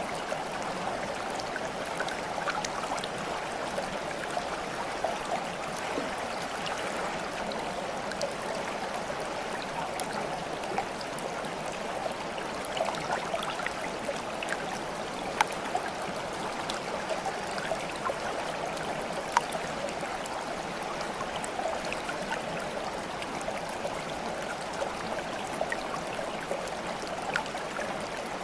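Shallow water trickling and babbling steadily, with many small splashes and drips scattered through it.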